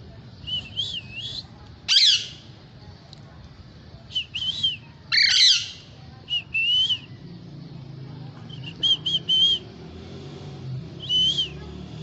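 Indian ringneck and Alexandrine parakeets calling: short chirps in quick runs of two or three, with two loud, harsh screeches about two seconds and five seconds in.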